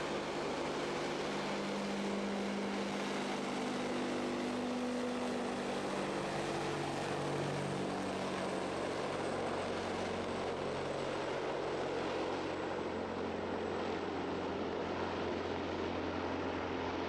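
Tu-95 bomber's four turboprop engines with contra-rotating propellers droning steadily in flight, several tones in the drone shifting slowly in pitch as it passes.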